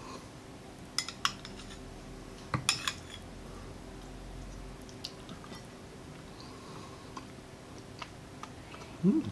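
Metal spoon clinking against a small glass sauce bowl as bone marrow is dipped in sauce: a couple of sharp clinks about a second in, a quick cluster of clinks near three seconds, then a few light taps. A short rising vocal sound comes just before the end.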